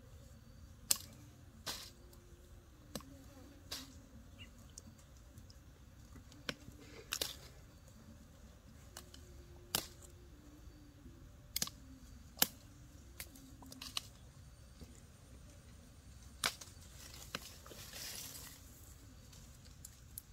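Baby monkey sucking on its fingers, making soft irregular smacking clicks about once a second, with a brief rustle near the end.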